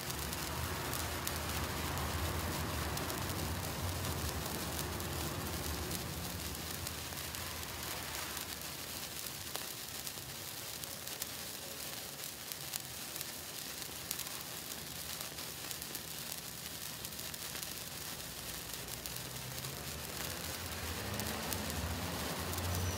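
Black Cat #20 gold wire sparkler burning, with a steady fizzing hiss and fine crackles.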